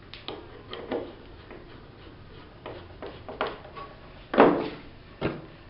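Hand work at a wooden router table, with the router switched off: a screwdriver working the fence screw, then a few light clicks and knocks of tools and wood on the wooden worktop. The loudest is a knock about four and a half seconds in, followed by a sharp click.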